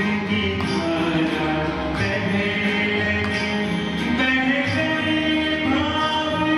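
Devotional singing with instrumental accompaniment: a voice holding long, gliding notes over steady sustained instrumental tones, with a few light percussive strikes.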